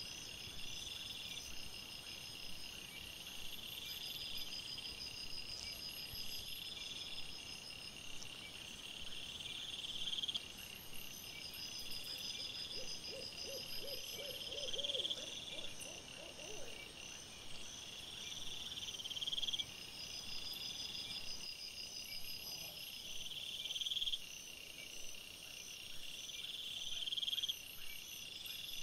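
A night chorus of high, rhythmic chirping trills, repeating about every two seconds, over a steadier high-pitched pulsing. A short run of lower, evenly spaced pulses comes in about halfway through.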